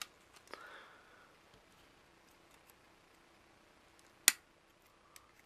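A soldered circuit board being bent by hand until its connector pins give way: a few faint ticks and creaks, then one sharp crack about four seconds in as the display board snaps off the main board.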